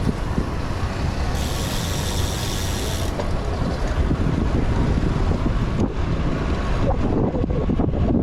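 Elitewheels Marvel 50 bicycle wheel's freehub buzzing while coasting, a fast high ratcheting whir from about a second and a half in to about three seconds, over steady wind rumble on the microphone from riding.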